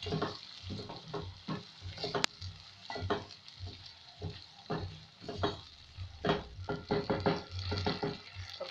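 Wooden spoon stirring sliced tomatoes and onions in a metal pot of hot oil: irregular scrapes and knocks against the pot over a steady sizzle.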